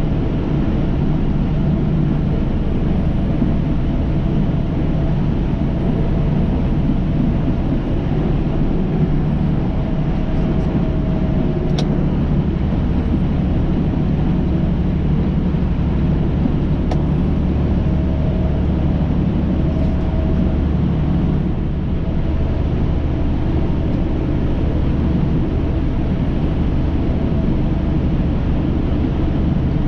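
Steady engine and road drone inside a semi-truck's cab while driving, a constant low hum with no change in level.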